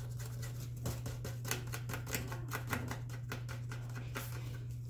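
Cat clawing a corrugated cardboard scratching pad: a quick run of scratchy ticks that stops about three and a half seconds in. A steady low hum sits underneath.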